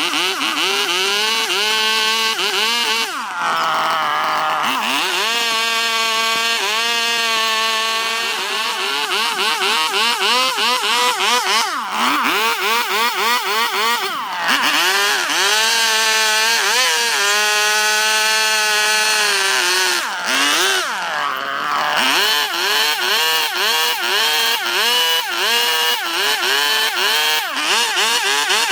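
High-speed electric rotary carving tool cutting wood. Its whine keeps dipping in pitch and climbing back as the bit bites into the wood and eases off.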